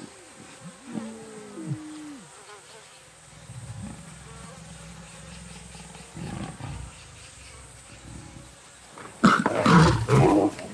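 Lions squabbling at a kill: a few short whining calls that bend in pitch in the first two seconds, then, about nine seconds in, a loud burst of lion growling.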